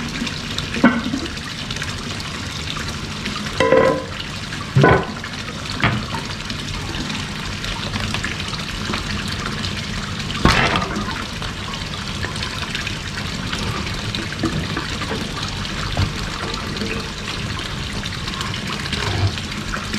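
Steady splash of a small waterfall pouring from a wall spout into a koi pond, with a few brief knocks and scrapes as the aerator pump is handled and lifted out.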